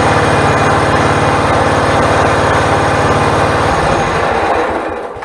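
Log splitter's small engine running steadily, then shut off about three and a half seconds in and winding down to a stop.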